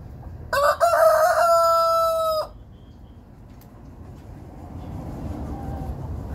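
Rooster crowing once, about two seconds long: a few short broken notes, then one long held note that cuts off sharply.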